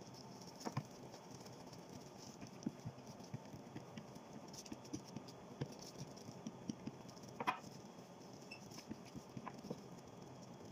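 Wooden rolling pin working dough on a dusted glass countertop: faint, irregular soft taps and knocks as it rolls and is set down, with one louder knock about seven and a half seconds in.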